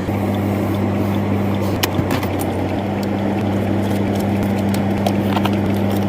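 A motor running with a steady low hum over a noisy background, with scattered light clicks.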